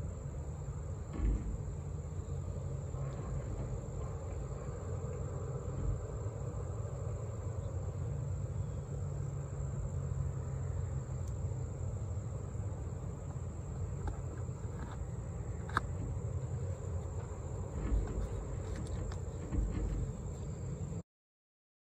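Steady high-pitched insect chirring, like crickets, over a low rumble, with a few soft knocks from hands handling the knife and its leather sheath. All sound cuts off suddenly near the end.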